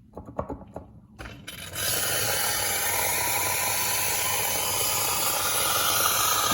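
A few clicks, then an instant boiling-water tap running: a loud, steady rush of near-boiling water, starting about a second in.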